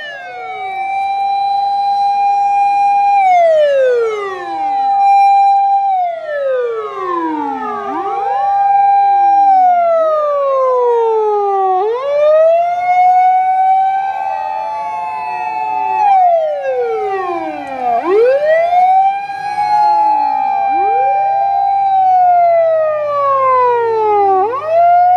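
Several Japanese emergency vehicles' sirens sounding at once as the vehicles drive in. Each holds a high wail, slides down over a second or two, then climbs back, and the sirens overlap out of step. A faint engine hum sits underneath in the second half.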